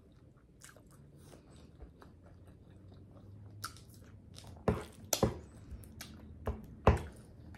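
Chicken Alfredo ramen being eaten: quiet chewing, then a run of about five loud, sharp mouth smacks in the last three seconds.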